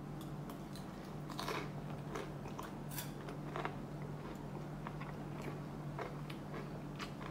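Faint, irregular crunching clicks, a few a second, over a low steady hum.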